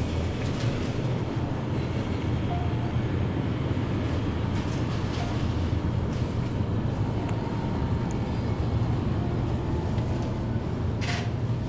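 Steady low rumble of a moving vehicle, with a short hiss about eleven seconds in.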